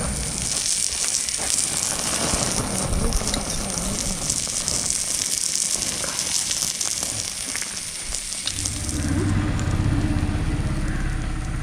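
Marinated pearl spot fish sizzling and crackling in oil on a hot stone over a fire. Near the end the high sizzle fades and a lower rumble takes over.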